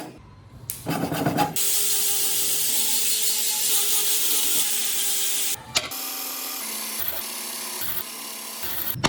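Power tool working wood: a short burst, then about four seconds of steady hissing with a faint steady whine. After that comes a quieter, lower-pitched run with brief breaks.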